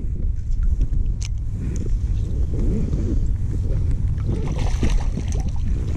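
Choppy water sloshing and lapping against an inflatable float tube, with wind buffeting the microphone as a steady low rumble.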